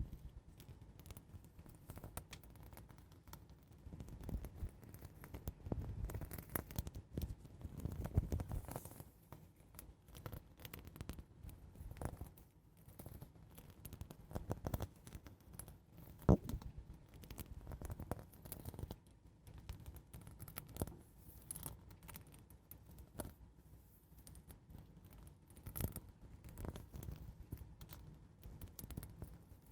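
Slow, gentle ASMR scratching close to the microphone: an irregular run of soft scratches and light taps, with one sharper click about sixteen seconds in.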